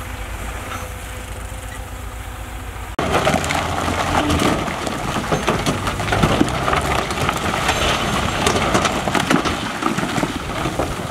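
A heavy diesel machine runs steadily with a low hum. About three seconds in, the sound cuts abruptly to a dense, irregular clatter of big rocks crashing and tumbling against each other.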